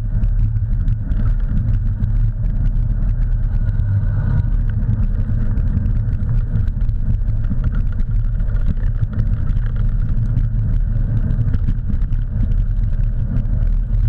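Steady low rumble of a dryland dog rig rolling along a dirt trail behind a running dog, with faint scattered clicks and rattles over it.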